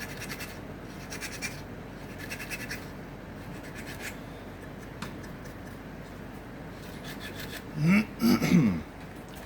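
Handmade acacia-wood comb drawn through a beard in several short scratchy strokes. Near the end, a brief hummed vocal sound with sliding pitch, the loudest thing here.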